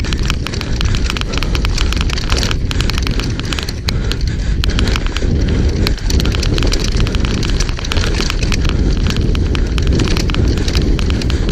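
Specialized Demo 8 downhill mountain bike rattling down a rough dirt trail at speed: a steady low rumble of tyres on dirt with dense, rapid clicking and clattering from the bike.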